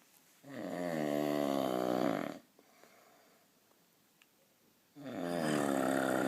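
A sleeping person snoring heavily: two long snores of about two seconds each, the first starting about half a second in and the second about five seconds in.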